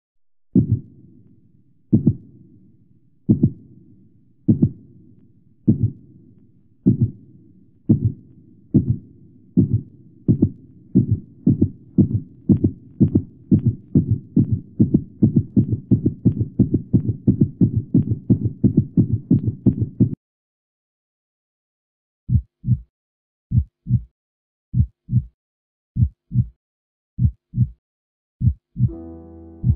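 Heartbeat sound: single low beats that start about a second and a half apart and speed up to about three a second, then cut off suddenly. After a two-second silence they return as slower paired lub-dub beats, about one pair a second.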